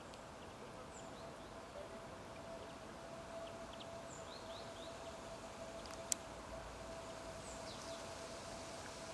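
Faint outdoor ambience by a lake: a steady low background noise with a steady hum, a few faint high chirps from small birds, and one sharp click about six seconds in.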